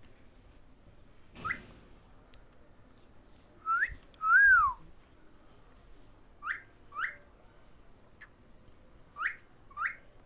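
Cockatiel whistling: short, clear rising notes, mostly in pairs about half a second apart, with one longer rising-then-falling whistle about four seconds in that is the loudest.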